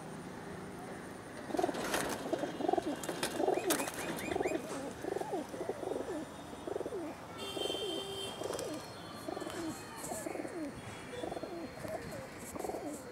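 Domestic pigeons cooing: a run of short, low, warbling coos, several birds overlapping, starting about a second and a half in and going on with little pause.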